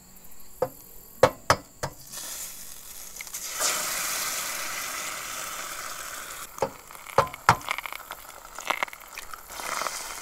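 Eggs being cracked and dropped into hot bacon grease in a frying pan: sharp taps of eggshell in two clusters, and in between a sizzle that swells as an egg hits the grease.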